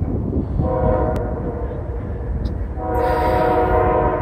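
Multi-note air horn of an approaching CSX freight locomotive sounding two long blasts, the second louder and still sounding at the end.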